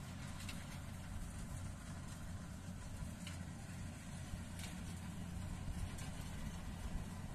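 Rice combine harvester's engine running steadily at a distance, a low continuous hum.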